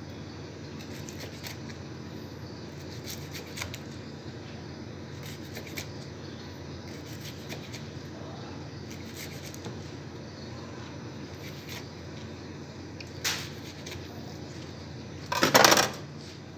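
Kitchen knife slicing through a sushi roll on a plastic cutting board: faint scattered cuts and taps over a steady background hum. A short louder noise comes near the end, and a brief, much louder one just after it.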